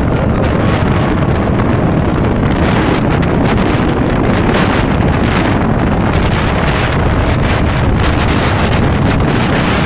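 Steady wind noise on the microphone of a Royal Enfield Hunter 350 motorcycle riding at road speed, with the bike's engine and road noise underneath.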